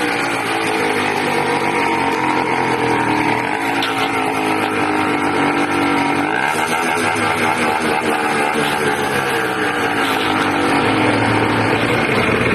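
80cc engine running loud, its speed rising and falling, with a quick rise about six seconds in; the owner suspects an air leak between the carburettor and the intake manifold.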